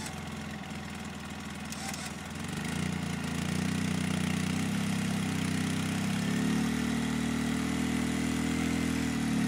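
Polaris RZR side-by-side's engine running under load on a steep rock ledge, growing louder about two and a half seconds in and then holding steady.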